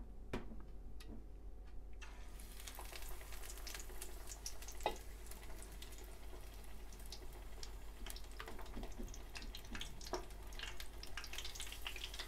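Battered oysters for tempura going into hot oil and frying, a dense sizzling crackle that starts suddenly about two seconds in. There are sharper pops about five seconds in and again near ten.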